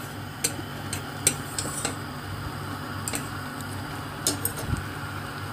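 Chopsticks stirring instant noodles in a stainless steel pot of boiling water, clicking sharply against the pot several times, over a steady low hum.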